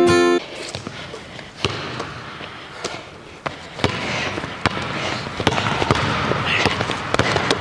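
Basketball dribbled on a hardwood gym floor: sharp, irregular bounces every half second to a second. A strummed guitar track cuts off about half a second in.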